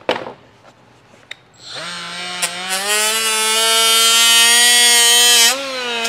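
A knock, then about two seconds in a cordless rotary tool with a small sanding disc spins up: a whine that rises in pitch and holds high and steady. Its pitch dips briefly near the end as the disc bears on the edge of the kick-panel template.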